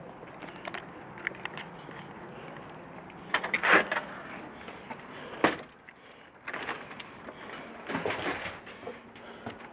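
Clicking and rattling of a house door's knob and latch as the unlocked door is opened. The loudest clatter comes about three and a half seconds in, a single sharp click about halfway through, and more rattling as the door swings and is passed through.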